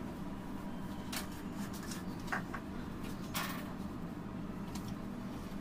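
Steady low background hum, with a few brief soft scrapes from a plastic cake scraper working over whipped cream on the cake.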